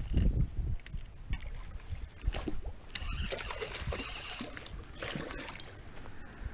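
Hooked fish thrashing and splashing at the water's surface while it is reeled in on a spinning reel, with heavy low bumps near the start.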